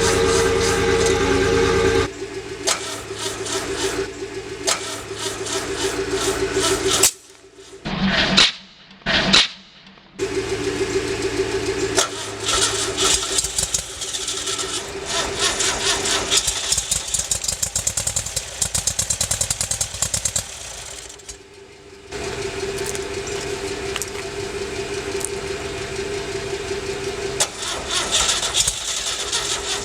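Rebuilt 1974 air-cooled VW engine being cranked over on its starter in repeated attempts with short pauses between them, turning over in an even rhythm without catching: it will not start after new rings and valve work.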